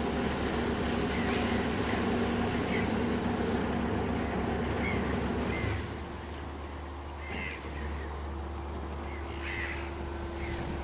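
Cargo ship Fingal's engine running with a low, steady rumble as it reverses, the rumble dropping away about six seconds in. Short bird calls sound now and then over it, more often near the end.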